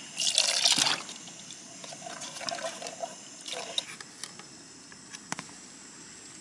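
Water poured from a plastic bottle into a camping pot of creamy sauce for about a second. A spoon then stirs in the metal pot, with a few light clicks.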